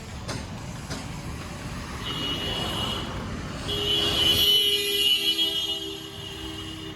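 Road vehicle noise at a roadside tyre shop. About halfway through, a steady pitched tone sets in and holds to the end.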